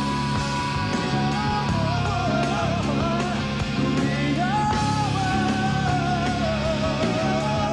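Rock band playing live: electric guitars, bass and drums, with a sustained, wavering lead melody held over steady chords.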